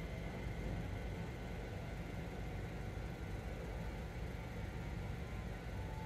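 Steady low rumble of a car idling at a standstill, heard from inside the cabin.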